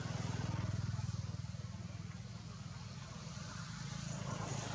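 A motor vehicle engine running off-screen: a steady low, rapidly pulsing hum, loudest about a second in and easing off a little after that.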